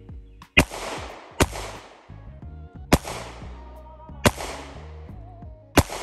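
Five 9mm pistol shots at uneven intervals, each sharp crack trailing off in a long echo, over background music.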